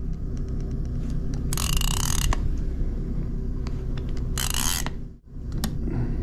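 Saltwater fishing reel being cranked against a heavy fish, with small regular gear clicks, then two short, loud hissing bursts, the first with a faint whine in it. A steady low rumble runs underneath.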